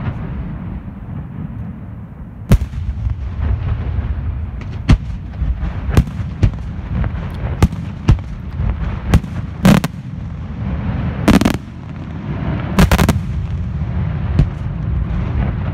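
Aerial firework shells bursting over a continuous low rumble, with sharp bangs going off every second or so and three louder, longer blasts in the second half.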